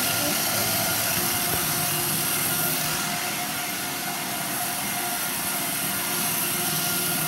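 Electric treadmill running: a steady motor whine and the hum of the moving belt, with toy cars riding on it.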